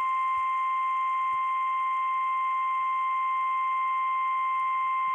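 NOAA Weather Radio warning alarm tone: one steady, unbroken high tone, the attention signal that comes before a warning message.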